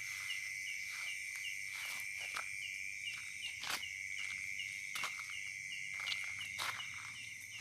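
Night insects, crickets among them, trilling in a steady high drone, with a short chirp repeating about two to three times a second. Footsteps fall irregularly over it.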